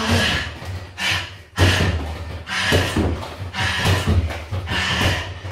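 Bare-foot hooking kicks hitting a freestanding punch bag, a thud about once a second.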